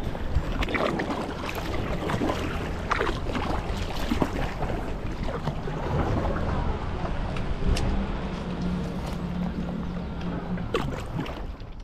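Kayak paddling on a calm river: paddle blades dipping and splashing with water sloshing along the hull, and wind on the microphone. A low steady hum comes in for a few seconds in the second half.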